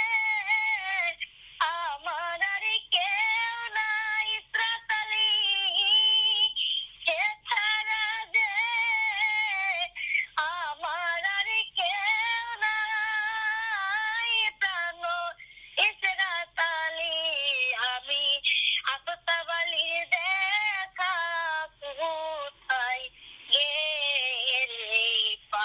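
A high-pitched, electronically altered singing voice over music, in phrases that bend up and down with short breaks between them.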